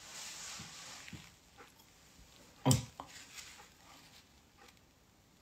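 A long breathy exhale, then small mouth clicks and one short, louder suck or smack at the teeth about two and a half seconds in: sucking at a bit of meat stuck between the teeth.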